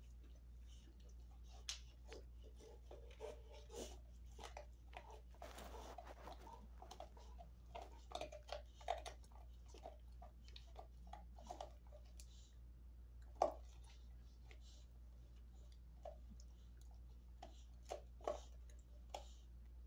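A large dog slowly gnawing a cheek roll chew: irregular crunches and clicks, with one sharper crack about two-thirds of the way through and a few more near the end, over a low steady hum.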